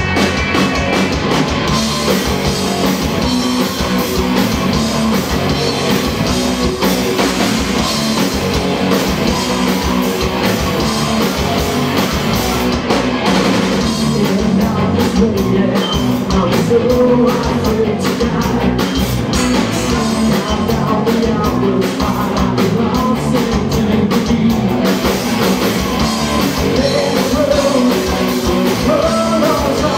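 Live rock band playing a song loudly and without a break.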